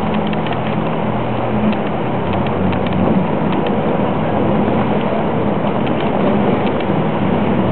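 A boat's engine running steadily under way: a constant low hum under a steady rushing noise.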